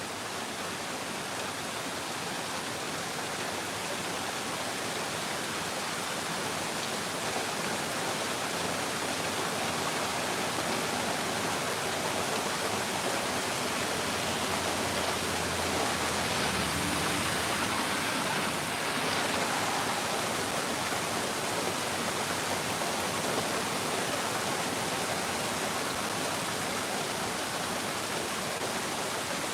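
Heavy rain falling steadily, an even hiss of downpour, with a faint low rumble around the middle.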